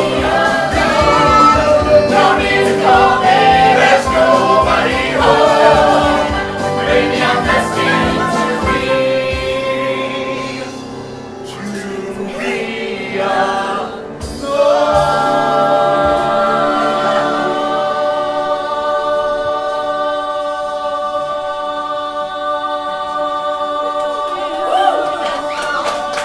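Ensemble of men and women singing a show tune together over a backing with a steady beat. A little past halfway the voices settle into a long held chord.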